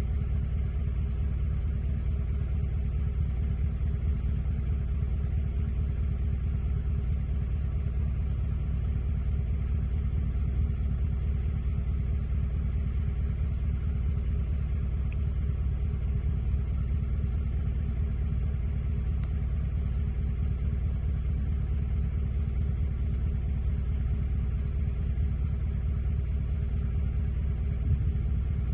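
A steady low rumble with a faint hiss above it, unchanging and without distinct events.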